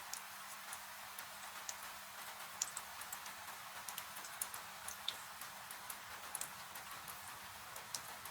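Wood fire crackling in a fireplace, with irregular sharp pops and snaps, over a steady hiss of falling rain.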